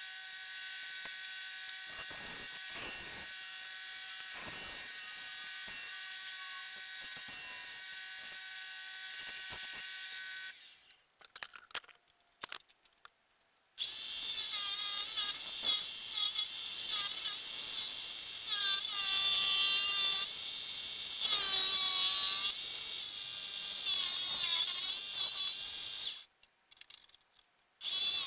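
Electric power saw motor running in two stretches, with a few seconds of clicks and near silence between them. The second stretch is louder, its whine shifting in pitch as the blade cuts wood.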